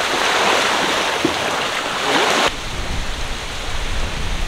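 Small lagoon waves washing on a beach, a steady hiss. About two and a half seconds in it cuts suddenly to a low rumble of breeze on the microphone.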